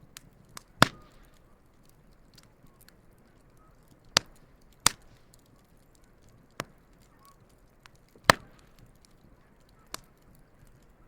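Wood campfire crackling: about six sharp, irregular pops, the loudest about a second in and about eight seconds in, over a low, steady hiss.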